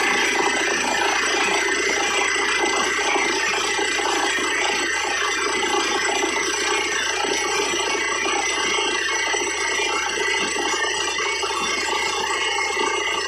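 Borewell drilling rig running steadily, a continuous dense mechanical noise with no pauses.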